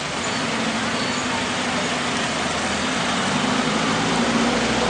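Motor vehicle engine running with a steady hum over a constant wash of road traffic noise.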